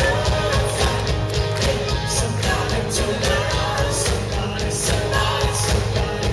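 A live rock band playing, with a woman singing lead over electric guitar, bass guitar and steady drums, recorded from the audience.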